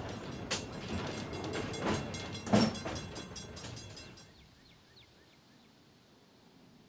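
Rattling and sharp knocks from inside an antique electric trolley car, the loudest knock about two and a half seconds in. About four seconds in it fades to near silence with a few faint high chirps.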